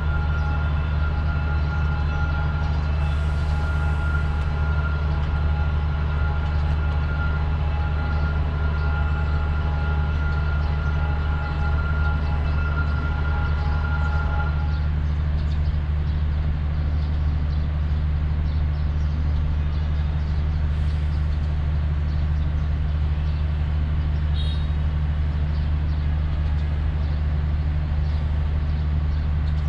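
Diesel locomotive of a freight train running steadily, a low drone. A steady higher whine over it cuts off about halfway through.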